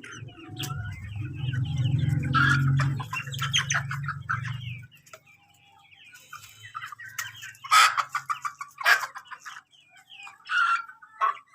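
Flock of chickens clucking, with several sharp, loud squawks in the second half. A low steady hum sits under the first half and fades out later.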